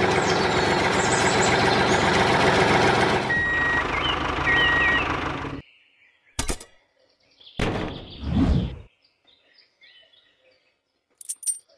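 Vehicle engine running steadily, with two short high beeping chirps near its end; it cuts off suddenly about five and a half seconds in. A single click and a short rushing noise follow.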